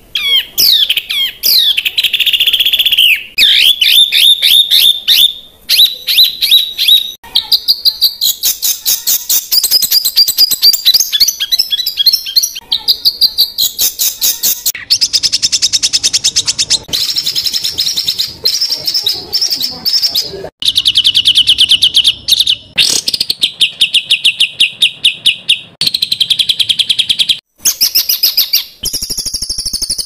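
A songbird singing fast, tightly packed runs of rapidly repeated harsh chirps and trills, with short breaks between runs and a few falling whistles near the start: the 'tembakan rapat dan kasar' style of song played to train cage birds.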